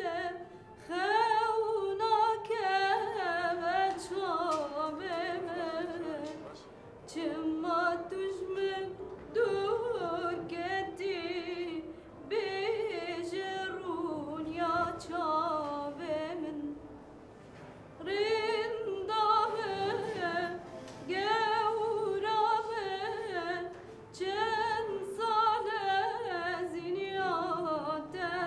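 A woman's voice singing a slow, ornamented melody with a wavering, trilling pitch, apparently unaccompanied. She sings in phrases of a few seconds, broken by short pauses.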